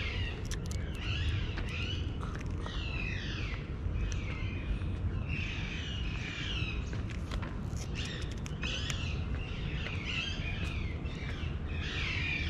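A flock of small birds chirping and twittering in dense, overlapping calls, over a steady low rumble and a few scattered clicks.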